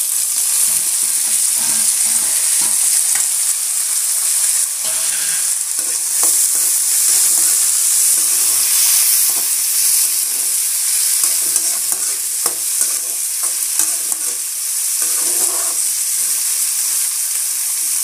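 Chopped onion, garlic cloves and dried red chillies sizzling steadily in hot oil in a metal kadai. A perforated metal ladle scrapes and knocks against the pan now and then as the onion is stirred.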